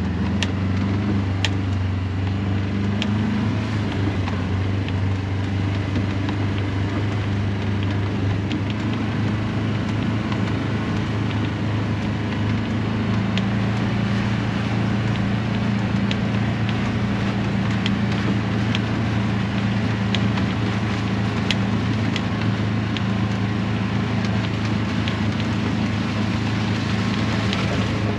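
A vehicle driving steadily: a constant low engine drone with road and tyre noise, broken by occasional faint sharp ticks.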